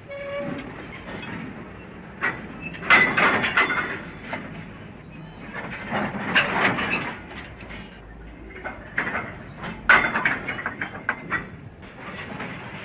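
Goods train on the move: rolling rumble of the wagons with three spells of clanking and knocking, about three, six and ten seconds in.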